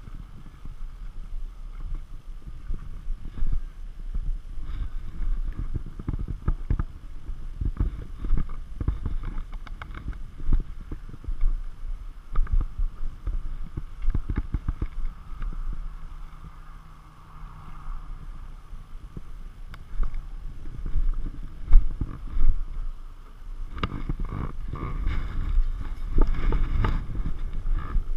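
Wind rumble and irregular knocks and rubbing on an action camera's microphone as the camera is carried about and mounted, getting busier near the end.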